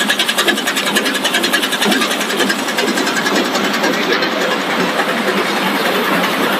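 Co-extrusion snack line machinery running: a rapid, even mechanical clatter over a steady machine noise, easing into a smoother, steadier noise about halfway through.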